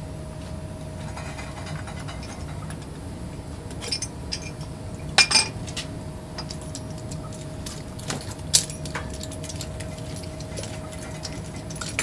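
Scattered metallic clinks and ticks of brass fittings as a water heater's temperature-and-pressure relief valve is unscrewed from the tank, over a steady low hum.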